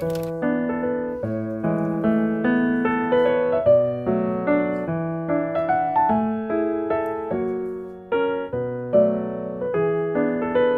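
Background piano music: a melody over chords, each note struck and fading.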